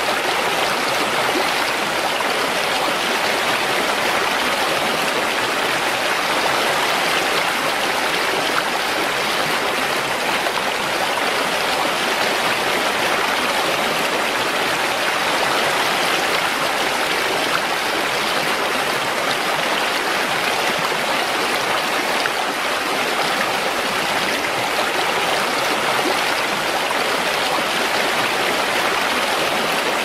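Small waterfall pouring over rocks into a shallow stream: a steady, unbroken splashing rush of water.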